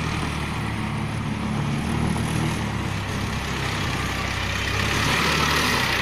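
Old TCM wheel loader's diesel engine running steadily as the loader drives across the yard. It grows a little louder toward the end as the loader comes closer.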